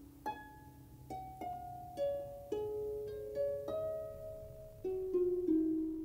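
Background music: a slow melody of single plucked-string notes, about two a second, each ringing on as it fades.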